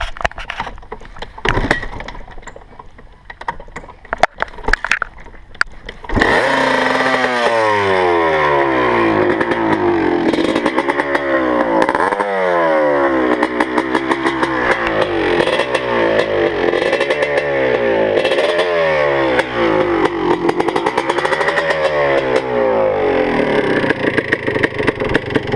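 1986 Honda ATC 250R's two-stroke single-cylinder engine firing up about six seconds in, after a few clattering knocks. It then runs with the throttle blipped about every two seconds, the pitch rising and falling with each rev.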